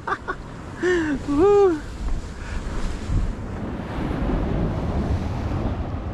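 Wind buffeting the microphone over the wash of breaking surf, a steady noise from about two seconds in. A short two-note voice call comes about a second in.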